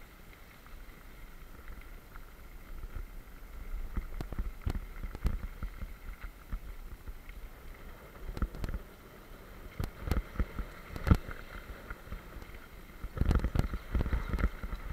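Mountain bike rolling down a gravel track: tyres crunching and rumbling over the stones, with frequent knocks and rattles from the bike over bumps. A sharp knock comes about eleven seconds in, and the knocking turns rougher and denser near the end.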